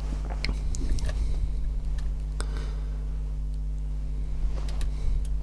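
Faint scattered clicks and taps of fingers handling the plastic chassis and front hub carrier of a Tamiya MF-01X RC car, over a steady low hum.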